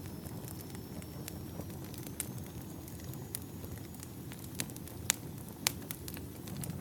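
Campfire of burning firewood crackling: a steady low rush of flame with scattered sharp pops and snaps, a few louder pops in the second half.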